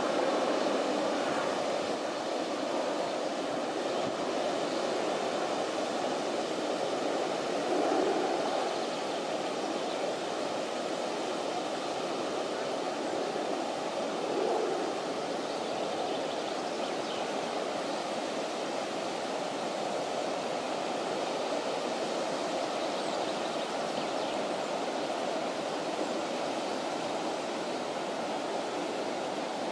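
Elbe floodwater pouring over a washed-out embankment edge and rushing past in a fast current: a steady, even rushing of water.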